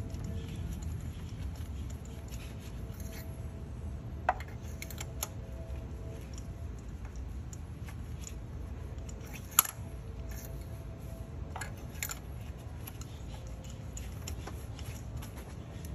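Scattered light metallic clicks and clinks from a spark plug socket and extension being turned by hand to thread a new spark plug into the cylinder head. The two sharpest clicks come about four and nine and a half seconds in, over a low steady background rumble.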